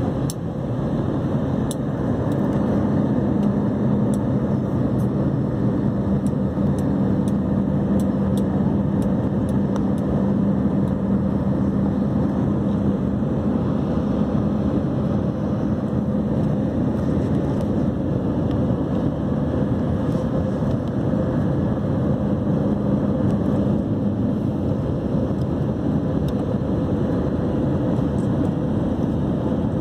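Steady cabin noise of a jet airliner in flight on descent: a dense rush of engine and airflow noise, with a low steady hum that fades out partway through and briefly returns.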